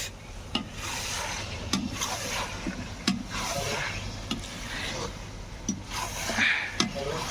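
Rhythmic scraping or rubbing strokes, about one a second, each with a small sharp knock.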